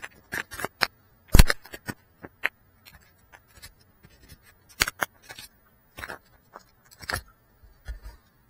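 Handling noise from a small FPV drone and its camera being picked up and handled by hand: an irregular string of sharp knocks, taps and light scrapes, the loudest knock about a second and a half in. The propellers are not running.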